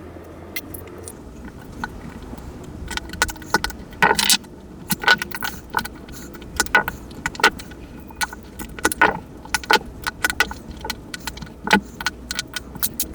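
Small metal parts and tools clicking and clinking as a Casio analog wristwatch is taken apart, in irregular sharp taps that start about three seconds in, with louder clinks around four and nine seconds in.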